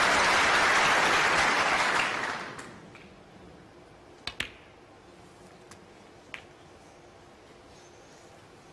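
Applause dying away over the first couple of seconds, then the sharp clicks of a snooker shot: the cue tip striking the cue ball and the cue ball hitting the black, a double click about four seconds in, followed by two lighter ball clicks over the next two seconds as the black is potted.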